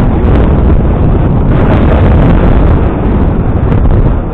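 Strong wind buffeting the microphone: a loud, uneven low rumble that eases a little near the end.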